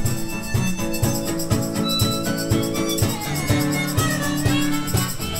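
Live acoustic duo playing: strummed acoustic guitar over a steady, even percussion beat with a light rattle on top.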